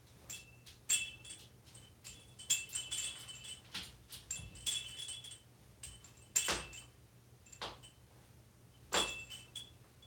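Small toy cowbell being shaken and knocked about by an African grey parrot, giving irregular metallic clinks and short rings, a dozen or so strikes, the loudest about a second, two and a half, six and a half and nine seconds in.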